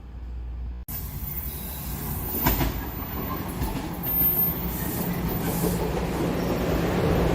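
TTC subway train running, its rumble and hiss growing steadily louder as it approaches. There is a sharp clack about two and a half seconds in and a brief high wheel squeal a little after.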